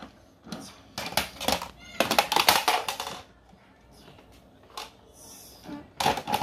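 Hard plastic parts of a toy aircraft playset clicking and knocking as they are opened and pressed. About two seconds in there is a loud, high-pitched, voice-like sound lasting about a second.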